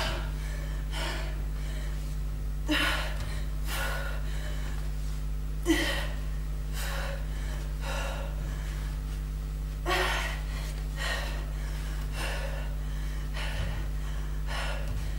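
A woman's heavy, hard breaths, sharp exhalations about one a second, from the exertion of a bodyweight cardio exercise. A steady low hum runs under them.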